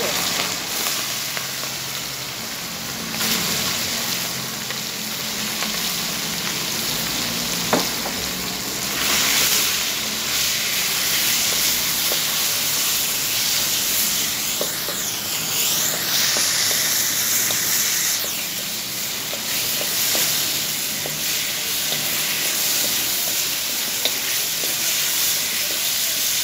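Food sizzling steadily in hot oil in a pan: a dense, hissing frying sound that swells a few times, with occasional light clicks from stirring.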